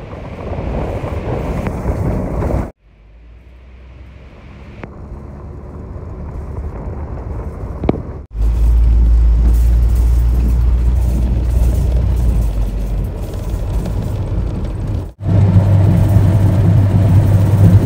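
Road and engine noise from inside a moving vehicle, first on a gravel road and then on a highway: a loud low rumble that breaks off abruptly at the cuts about 3, 8 and 15 seconds in, with a steady low hum through the last few seconds.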